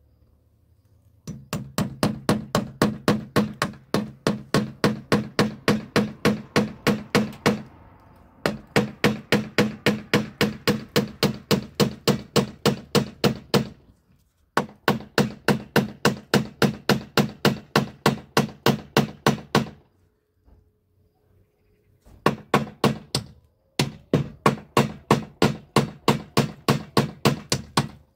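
Hammering on the treehouse's wooden board wall: quick, even blows about four a second, in five long runs broken by short pauses.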